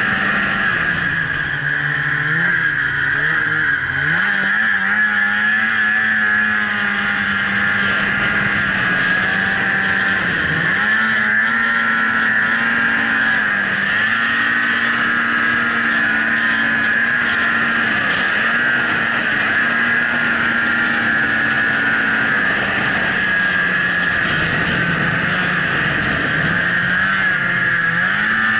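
Snowmobile engine running at a steady cruising pitch, with a high whine over it. The engine note dips briefly several times and climbs back as the throttle is eased and reapplied.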